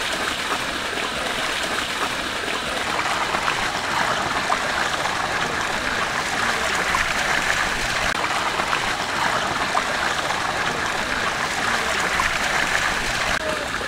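Steady splashing and trickling of water as pieces of cut stingray are washed by hand in a large aluminium pot, with many small wet ticks.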